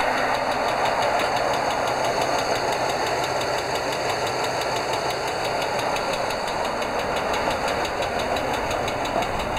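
American school bus engine idling with a rapid, even tapping from the valvetrain: tappet noise from a hydraulic lifter that is not pumping up.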